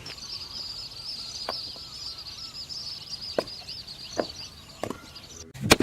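Steady, high chirring of forest wildlife with a few sharp, separate knocks, then a loud thud near the end.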